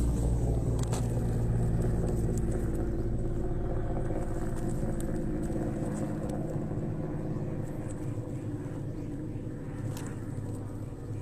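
Military helicopter overhead: a steady low drone of several held tones from its engine and rotors, slowly growing fainter.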